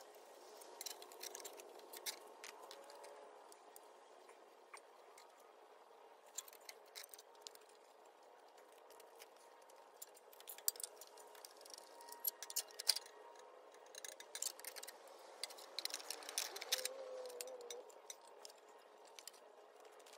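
Scattered light metal clicks, taps and rattles as the sheet-metal dash shroud of a Mitsubishi S370 tractor is worked loose and lifted off, with a cluster of sharper knocks about ten to thirteen seconds in.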